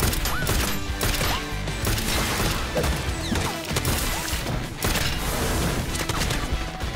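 Dramatic action-score music layered with sound effects of gunfire, impacts and an explosion, with many sharp hits through the music.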